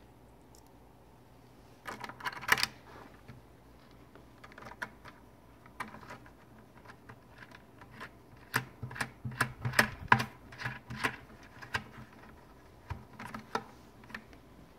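Irregular small clicks and taps of a short metal bolt, nut and washer being fitted by hand through the rim of a plastic bucket, with a busier run of clicks about two-thirds of the way through.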